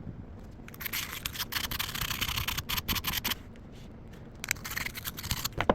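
A brush scrubbing rust off the metal of an old Craftsman hand drill: rapid scraping strokes in one spell of about two and a half seconds, then another after a short pause.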